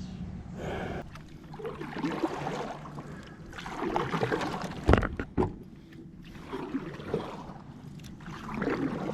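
Water sloshing and swishing against a kayak hull in surges, over a steady low hum, with two sharp knocks on the hull about five seconds in.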